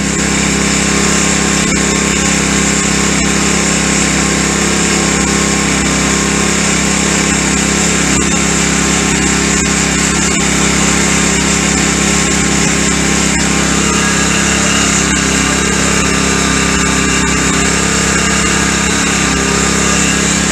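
The kayak's small motor runs steadily at its fastest throttle setting, with an even, unbroken mechanical drone.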